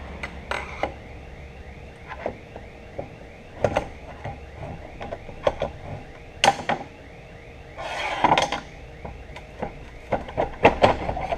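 Screwdrivers prying at a steel ring stuck in the bore of a cast housing: a string of sharp metal clicks and taps, with a longer scrape about eight seconds in.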